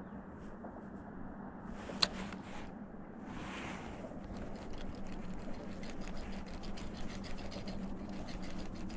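Spinning reel ticking rapidly while a hooked fish is wound in, over the low steady hum of a bow-mounted electric trolling motor. A single sharp click comes about two seconds in.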